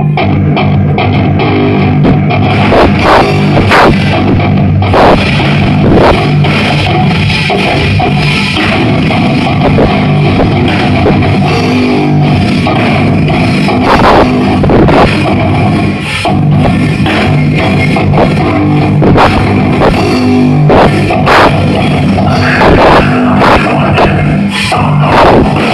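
Live djent band playing loud, with heavy distorted guitars and a drum kit; the mix is muddy and distorted, as in a poor live recording.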